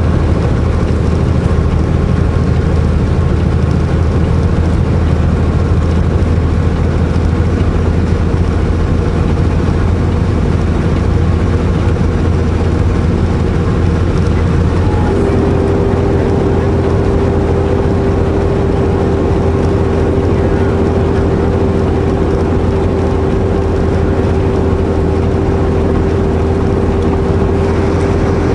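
Semi truck's diesel engine running steadily under load, heard from inside the cab. About halfway through, a steady whine joins the drone and holds.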